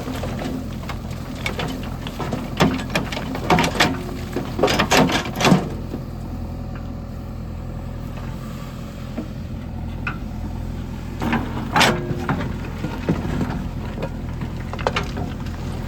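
Heavy diesel engine running steadily at low speed, with bursts of clanks and knocks in the first six seconds and again around eleven to thirteen seconds.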